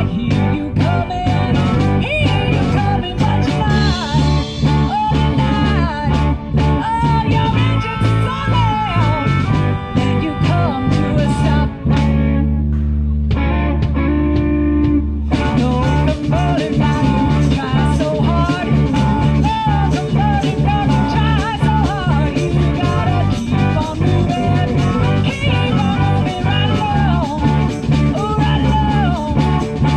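Live blues-rock band playing through a PA: electric guitars, bass and drums, with a harmonica wailing over the top. About halfway through, the band drops back to a held low note for a few seconds, then comes back in full.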